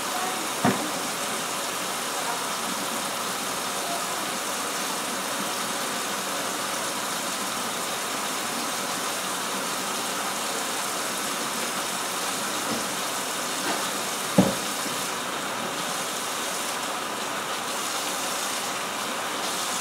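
Kitchen tap running a steady stream into a stainless-steel sink, with two light knocks, the louder about fourteen seconds in. In the last few seconds the sound of the water shifts as hands go under the stream.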